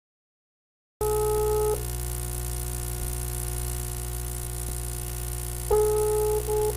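Telephone ringback tone heard on the caller's line while the other end rings: two steady beeps about four seconds apart, starting about a second in, over a constant electrical hum.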